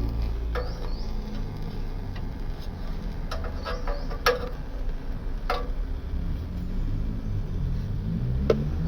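Occasional sharp metallic clinks of hand tools knocking against metal under a car, the loudest about four seconds in, over a steady low rumble.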